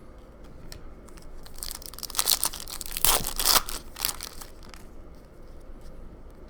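A foil trading-card pack wrapper crinkling and tearing as it is opened by hand, loudest for about two seconds around the middle.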